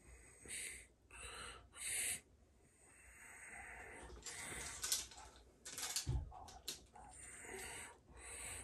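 Faint, short breathy puffs, three in the first two seconds, then soft rustling and handling noise with a few light clicks and a low thump about six seconds in.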